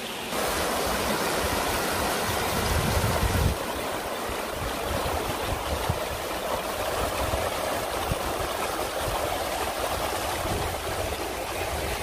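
Shallow rocky stream rushing and splashing over stones, heard up close. It gets louder just after the start.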